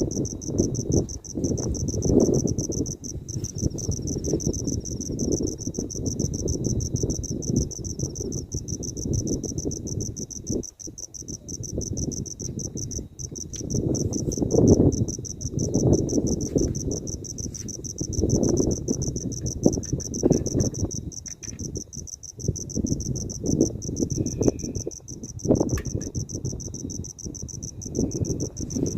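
Strong wind gusting and buffeting against the tent and microphone in uneven surges, with crickets trilling steadily and high above it.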